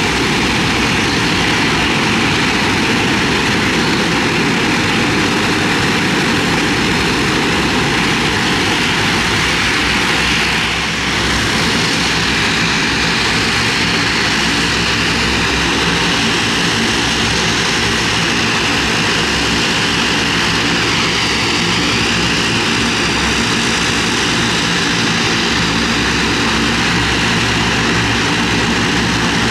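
Canadair CL-215T water bombers' twin Pratt & Whitney Canada PW123AF turboprop engines running as the aircraft taxi, a loud, steady propeller drone.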